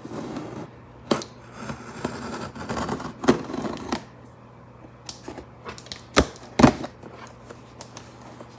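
A utility knife slicing through packing tape along the seam of a cardboard box, scraping and ticking in uneven strokes, with the cardboard rustling under the hands. Two sharp knocks on the box a little after six seconds in are the loudest sounds.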